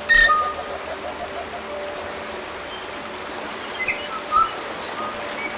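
Stream water running steadily, with a few short bird chirps, the loudest just after the start and another about four and a half seconds in. Faint background music fades out in the first second or two.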